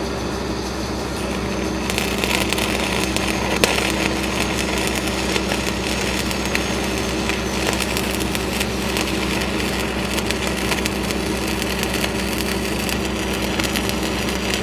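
Stick-welding arc crackling steadily as a cellulose 8010 electrode runs a downhill cap pass on 6-inch schedule 80 steel pipe, starting about two seconds in. A steady engine hum runs underneath.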